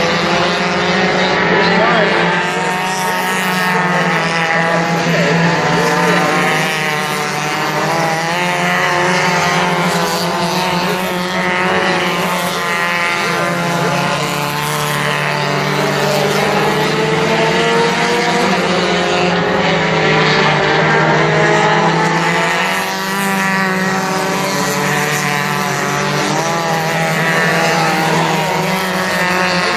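Several mini stock race cars running laps on an oval track, their engines overlapping and rising and falling in pitch as they accelerate and pass by.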